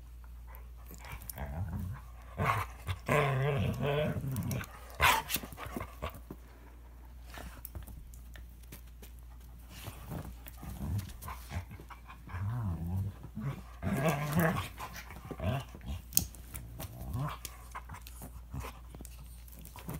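A standard poodle and a toy Manchester terrier fighting: growling and snarling in bursts, about two seconds in and again from about eleven seconds, with a quieter lull between.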